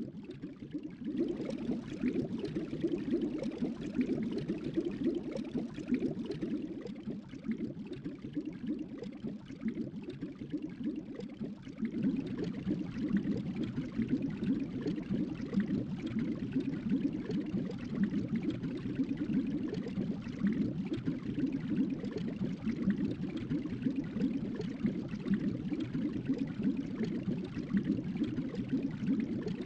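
Tropical island ambience sound effect: a continuous low, watery rush with no distinct events, growing a little louder about twelve seconds in.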